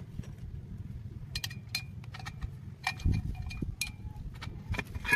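Scattered clicks and light metallic clinks as a drill stand's steel column is handled and fitted into its base, some with a short ringing tone, with a few dull knocks about three seconds in and one loud knock at the very end.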